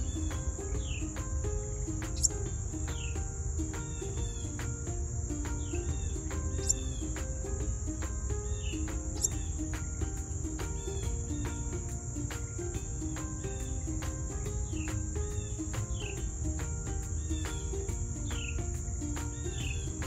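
A steady, high-pitched insect chorus, crickets or similar, over soft background music that repeats a short stepping melody, with short falling chirps about every second and a half.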